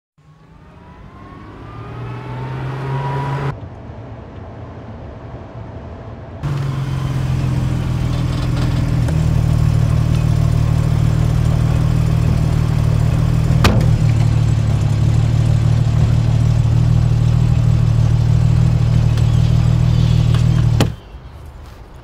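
Car engine revving up, its pitch rising over the first few seconds, then after a brief drop running steadily, with one sharp knock partway through; the engine sound cuts off abruptly near the end.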